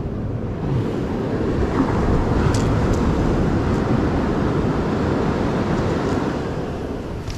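Wind noise on the microphone over surf washing up the beach; the sound swells about two seconds in and eases off near the end.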